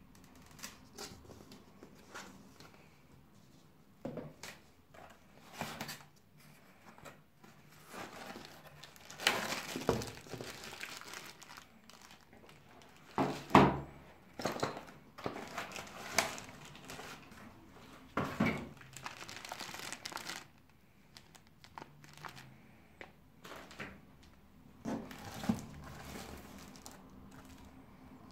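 Cardboard box flaps and card inserts being handled during an unboxing, with crinkling plastic packaging: irregular rustles and scrapes, broken by a few knocks, the loudest about halfway through.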